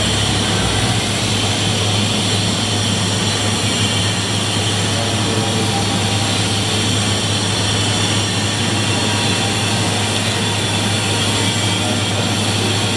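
Steady rushing noise with a constant low hum underneath, unchanging throughout.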